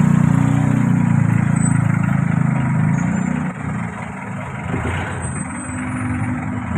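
An engine running at idle with a low, pulsing drone, loud at first and dropping off about three and a half seconds in.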